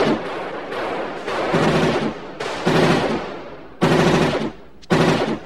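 RoboCop's Auto-9 machine pistol firing short rapid bursts on a firing range, one burst about every second, each ringing on briefly after it.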